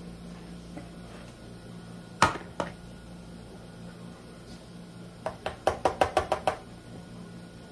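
Metal utensil knocking and clinking against a tin can of pumpkin puree while the puree is scooped out. There is one sharp knock about two seconds in, a lighter one just after, and near the end a quick run of about nine light clinks with a slight ring.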